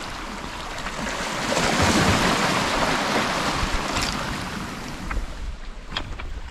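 Small sea waves washing over rocks and pebbles at the shoreline, rising and easing, with some wind on the microphone. A few light clicks near the end.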